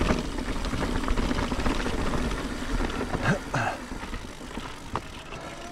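Mountain bike rolling over a rough trail: steady tyre rumble and frame rattle picked up by a GoPro, slowly fading, with a sharp click about five seconds in.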